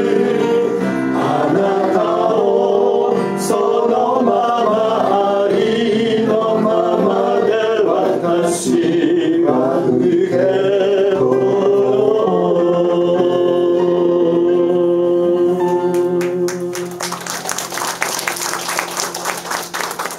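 Small gospel choir of men and women singing with instrumental accompaniment, closing on a long held final chord. Applause breaks out near the end as the song finishes.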